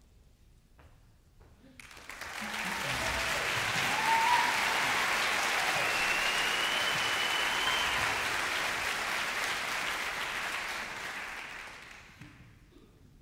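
A large audience applauding. It swells in about two seconds in, holds steady, and dies away near the end, with a couple of brief whistles over it.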